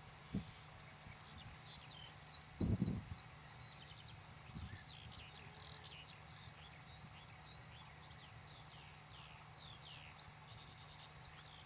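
A songbird singing a continuous run of quick, sweeping high chirps. A few low thumps break in, the loudest about three seconds in.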